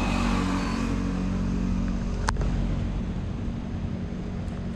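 Geprc Cinelog35 cinewhoop drone's motors spinning at idle while the drone is still on the ground, giving a steady hum, with one sharp click a little over two seconds in.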